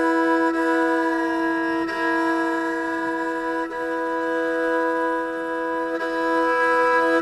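Pontic kemençe (lyra) bowing long held notes, with more than one pitch sounding together and small shifts every couple of seconds.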